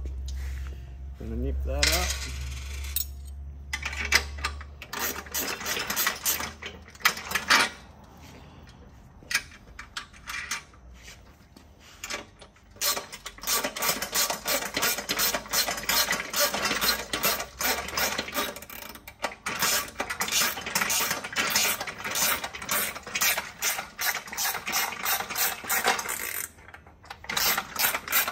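Small steel hardware (bolt, washers, spring washer and nut) being handled and fitted on a steel bike-carrier channel: scattered metallic clicks and a short rising squeak about two seconds in, then a long run of rapid, even clicking through the second half.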